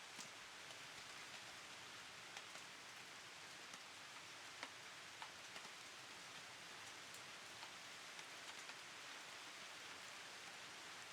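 Steady, fairly soft rain: an even hiss with scattered individual drops ticking sharply through it, and no thunder.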